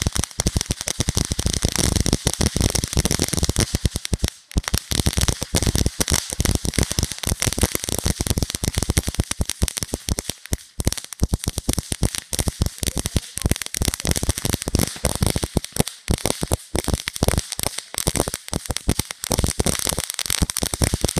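Svea 'Crackling Snowball' ground fountain firework burning: dense, rapid crackling over a steady hiss from the spark jet.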